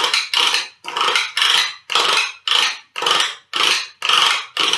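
A thin stick scraped rhythmically back and forth over the ridges of a plastic ice cube tray, played like a guiro: a rasping scrape about twice a second, around ten strokes in all.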